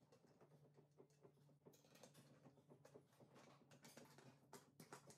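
Near silence with faint scattered ticks and clicks, from a Phillips screwdriver tightening cam locks in a particleboard furniture panel.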